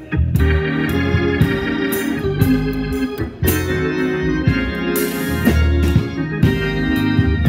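Organ music: sustained chords over a strong bass line, with frequent sharp percussive hits.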